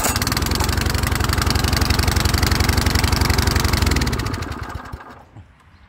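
Small single-cylinder four-stroke Honda-clone engine firing up and running with an even rapid beat for about four seconds, then slowing and dying out about a second later, with only a slight drop of fuel in it.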